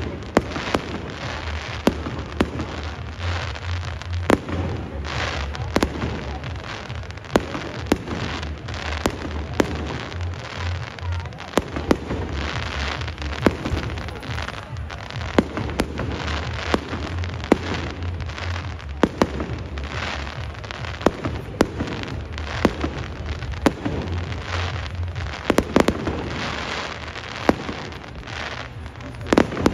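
Aerial fireworks display: shells bursting in an irregular string of sharp bangs, about one or two a second, over a continuous crackling.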